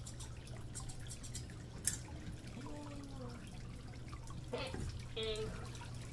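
Water dripping and trickling steadily over a low hum, with one sharp click about two seconds in.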